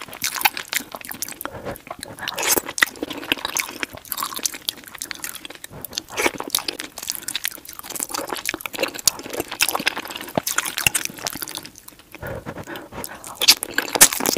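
Close-miked chewing of a mouthful of chili cheese fries, with many quick wet clicks of the lips and mouth.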